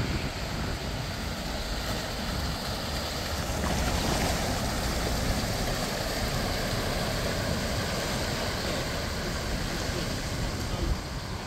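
Hatchback car driving slowly through deep floodwater, water sloshing and spraying off its wheels and bow wave over the engine's running. The rush of water swells from about three and a half seconds in, as the car passes close.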